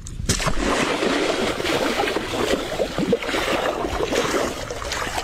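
Large hooked fish thrashing in shallow, muddy water, splashing hard and continuously; the splashing starts suddenly just after the start.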